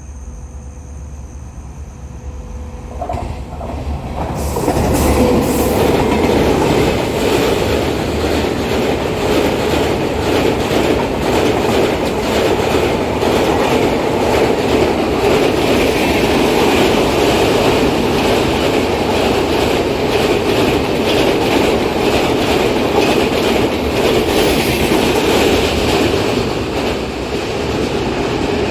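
Express passenger train with Duronto-type coaches running onto and over a railway bridge. A low rumble swells suddenly about four seconds in, as the train meets the bridge, into a loud, steady din of wheels on the bridge with rail clatter, and this keeps on to the end.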